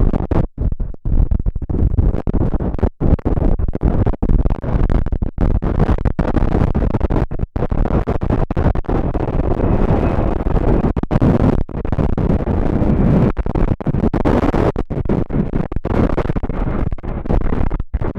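Strong gusty wind buffeting the microphone: a loud, rough rumble broken by frequent brief dropouts.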